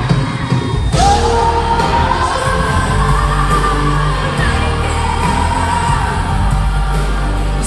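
Live pop ballad with a band: a female singer holds one long sustained high note over a heavy bass accompaniment, recorded on a phone from the audience.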